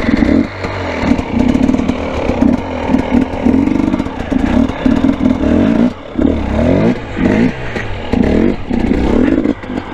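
Dirt bike engine revving in short, uneven throttle bursts, about two a second, with the pitch rising and falling as the rider pops the front wheel up for slow wheelies.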